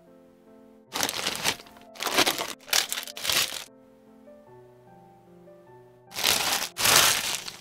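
Packaging being handled and unwrapped, crinkling and rustling in loud bursts: three in quick succession in the first half, two more near the end. Soft background music with a simple melody plays underneath.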